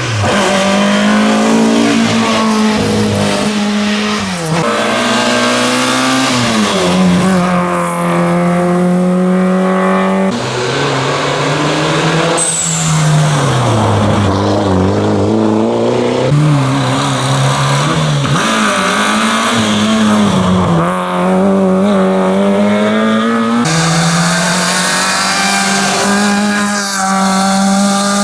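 Rally car engines revving hard, pitch climbing and dropping again and again with gear changes and lifts of the throttle. The sound changes abruptly a few times, about ten, sixteen and twenty-three seconds in.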